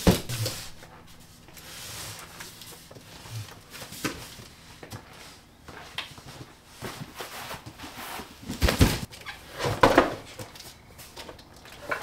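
Cardboard boxes being handled and set down on a concrete garage floor: scuffs and a few thumps, the loudest two about nine and ten seconds in.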